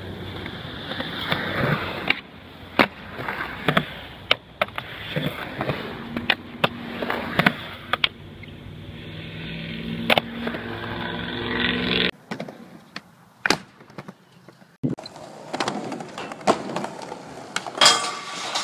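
Skateboard wheels rolling on concrete, broken by repeated sharp clacks of boards popping and landing, and the scrape of a board grinding a curved ledge and a rail. The sound changes abruptly about twelve seconds in.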